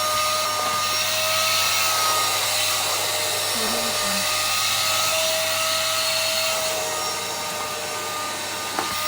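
Vacuum cleaner running steadily: a motor whine over rushing air. The whine wavers slightly in pitch a few times, and there is a single sharp click near the end.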